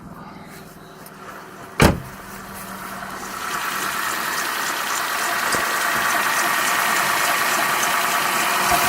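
Citroën C2 engine idling after being started. There is a single thump about two seconds in, then the engine noise grows louder over a couple of seconds and holds steady.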